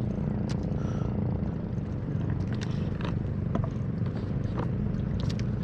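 A bangka outrigger boat's engine running steadily, a low even rumble, with a few faint clicks over it.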